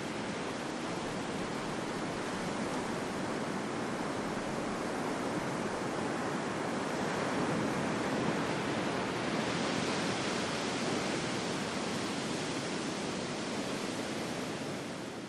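Sound-effect recording of ocean surf: a steady rushing wash of breaking waves that swells and brightens about halfway through and starts to fade near the end.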